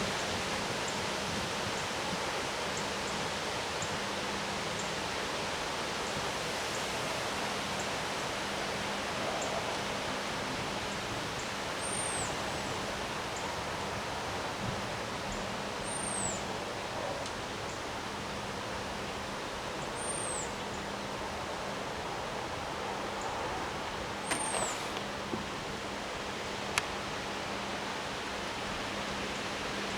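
Steady rushing noise of high storm winds during a severe thunderstorm, with a faint low hum underneath. A short, high chirp rises and falls about every four seconds in the second half, and there are a couple of sharp clicks near the end.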